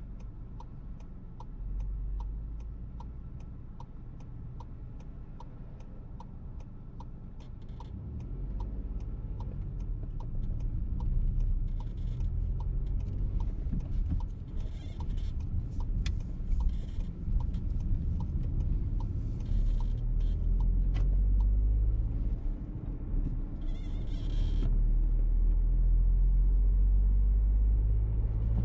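Turn-signal indicator ticking inside a VW T-Roc's cabin, about two ticks a second, fading out about halfway. The low engine and road rumble grows louder as the car gets under way.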